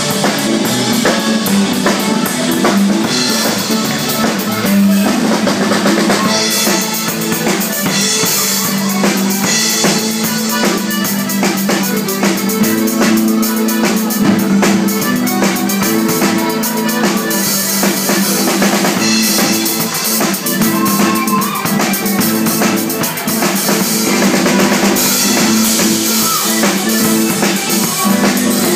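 Live Scottish ceilidh band playing a fast dance tune, with accordion over a steady, driving drum kit.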